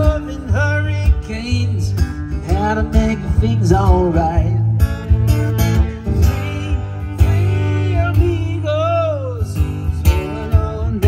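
Fiddle playing a melody with sliding, bending notes over a strummed acoustic guitar, in a country or bluegrass style.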